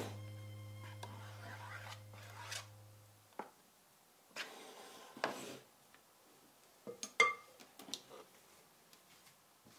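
Metal offset spatula scraping and tapping against a metal baking tin while spreading thick cake batter, in short separate strokes. The sharpest click, about seven seconds in, comes as the tin is handled. A held music note fades out over the first three seconds.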